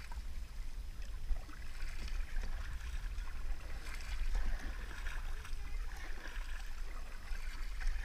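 Kayak paddle dipping and water trickling and splashing along the plastic hull as the kayak is paddled, over a steady low rumble.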